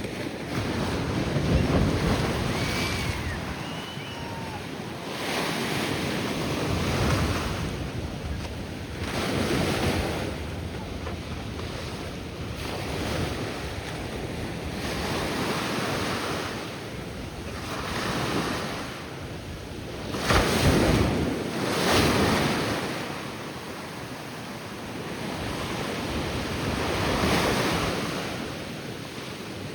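Ocean surf washing ashore, a hiss that swells and fades every few seconds as the waves break and run up the beach, with wind buffeting the microphone. The loudest surges come about two-thirds of the way through.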